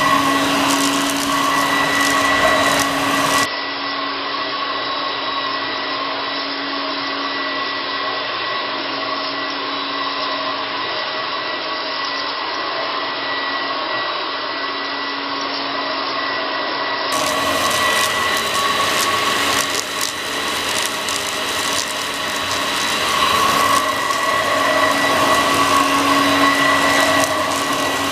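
Homemade Vorwerk cyclonic bagless upright vacuum cleaner running steadily while vacuuming a shag rug: an even rush of air with a steady motor whine on top, easing slightly for a stretch in the middle.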